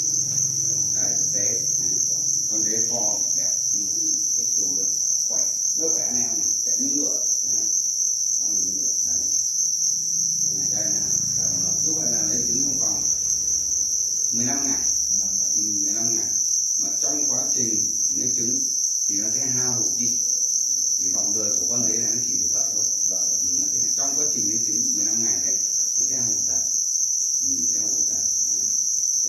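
A dense chorus of farmed black crickets calling together, a steady high-pitched chirring that runs without a break.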